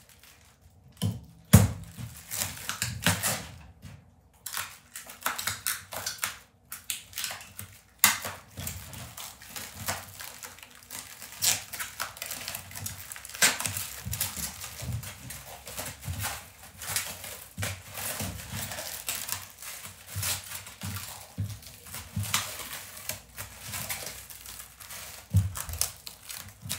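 Blue protective plastic film being peeled off a resin 3D printer's acrylic cover and crumpled in the hand: irregular crinkling and crackling throughout, with a sharp knock about a second and a half in.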